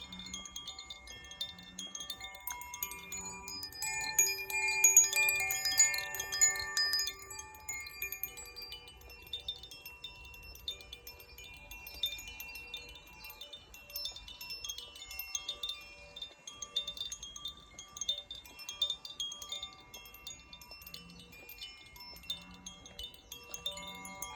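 Tuned wind chimes ringing, many clear overlapping tones sounding and dying away. They are most busy and loudest about four to seven seconds in, then ring more sparsely.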